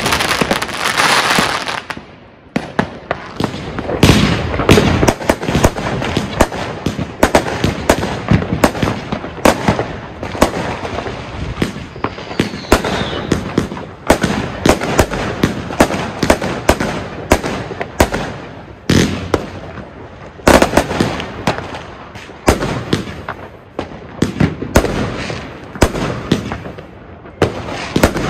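Argento Walküre 131-shot compound firework cake firing: a dense crackling burst that stops about two seconds in, then a rapid string of sharp launches and bangs, several a second.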